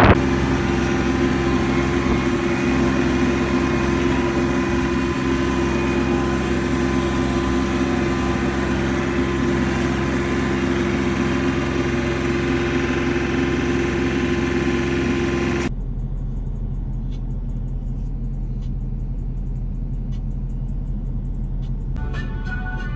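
Small tractor's engine running at a steady speed. About two-thirds of the way through it cuts off abruptly to a quieter low steady hum with a few faint ticks.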